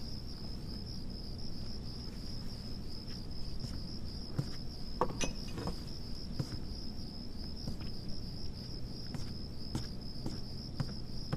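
Crickets chirring steadily in one high, faintly pulsing tone, with a few faint clicks and knocks.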